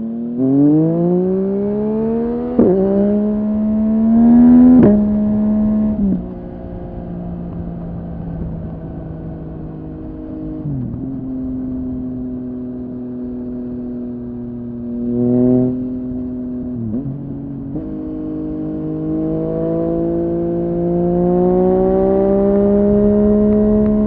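Yamaha MT-09's three-cylinder engine through a Dominator HP8 aftermarket muffler, accelerating hard with two quick upshifts in the first five seconds. It then cruises with a few throttle dips and one short rev blip, and pulls steadily again toward the end.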